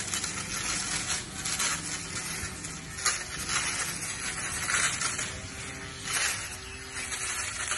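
Pole hedge trimmer cutting into a leafy hedge overhead, a crackling, rustling noise of clipped leaves and twigs that comes in uneven surges.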